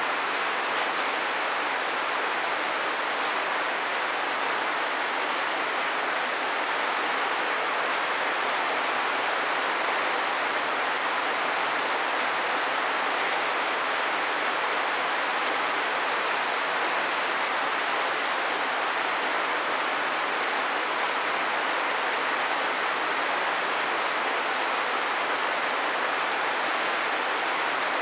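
Steady rain falling, an even, unbroken hiss with no gusts or separate drops standing out.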